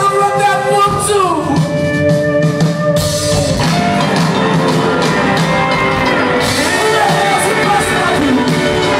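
Live rock band performing, heard from far back in the audience of a large concert hall; the band's sound grows fuller about three seconds in.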